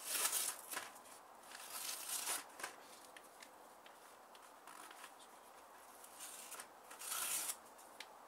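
Thin card packaging being peeled apart by hand, the paper tearing free of its glue strips in three short rustling bursts, the loudest near the end, with small crackles between.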